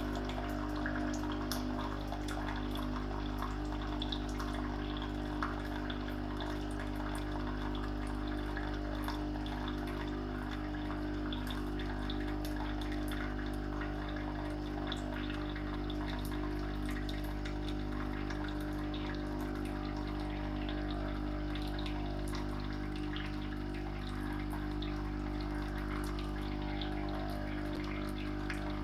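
Philips 2300 bean-to-cup coffee machine dispensing hot water: its pump hums steadily while the water pours and splashes into the cup.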